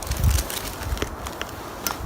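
Wind gusting on the microphone in a low, uneven rumble, with a few faint clicks and rustles of gear being handled.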